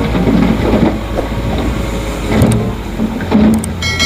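Dump truck engine running while its raised tipper bed unloads soil, the dirt sliding and thudding out onto the ground. A short ringing tone sounds near the end.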